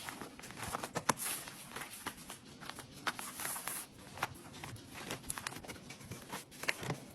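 Faint handling noises in a small room: a scatter of light taps, clicks and rustles, as of items and packaging being moved about.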